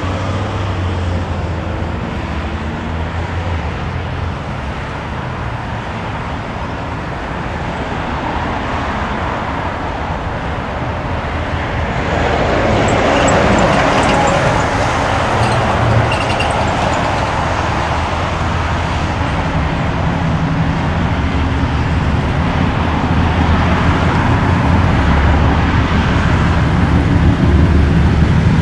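Two KiwiRail DXC diesel-electric locomotives approaching at the head of a passenger train, their engines giving a steady low drone that grows louder toward the end. Road traffic noise mixes in, loudest partway through.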